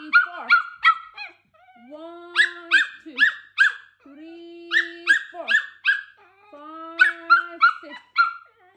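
A Pomeranian barking in high, sharp yaps. It repeatedly draws out a long whining note, then fires off three or four quick yaps, three rounds in all after an opening run of yaps.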